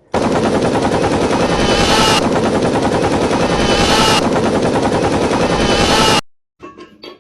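Loud rapid rattling like automatic gunfire, in three stretches of about two seconds each, cutting off suddenly about six seconds in.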